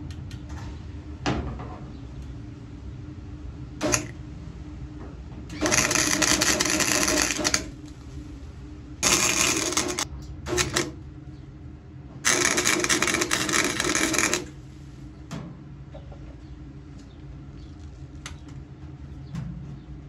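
Welder tack-welding a sheet-metal quarter panel: three crackling bursts of about two seconds, one second and two seconds, with a few short blips between them.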